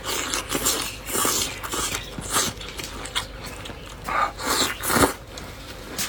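Close-up eating sounds: a person biting and chewing tender bamboo shoots, with irregular moist, crunchy bites and chews.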